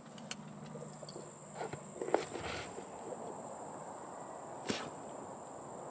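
Steady high-pitched drone of insects, with a few faint short sounds about two seconds in and a sharp click late on.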